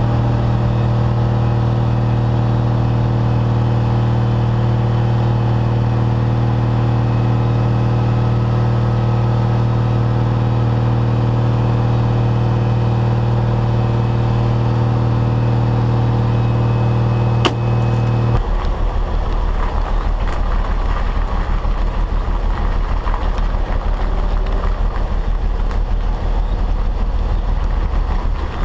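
Heavy tow truck's diesel engine running at a steady, constant speed. About two-thirds of the way in there is a click, then the steady engine note gives way to a rough, noisy rumble of the truck driving along the road, with wind on the microphone.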